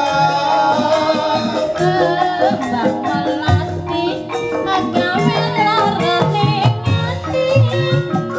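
Banyumas gamelan music accompanying an Ebeg horse dance: struck metallophone tones and a drum beat, with a singer's wavering melody over them.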